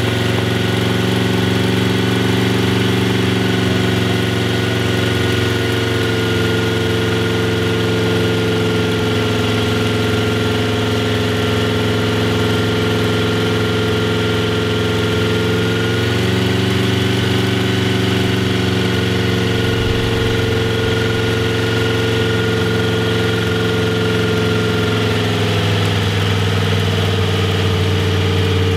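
W.W. "Cockeyed" Brown's supercharged 160-cubic-inch straight-eight racing engine idling steadily through a short open exhaust pipe, freshly restored and on its first run in decades. Its speed wavers slightly, dipping a little about halfway through and again near the end.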